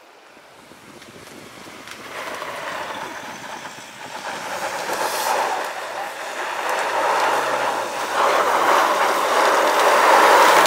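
A vehicle running over rough ground: a rushing, rumbling noise without clear tones that builds steadily and is loudest near the end.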